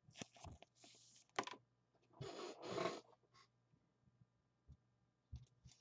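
Faint handling sounds: a few light clicks, with a short rustle about two seconds in, then near silence.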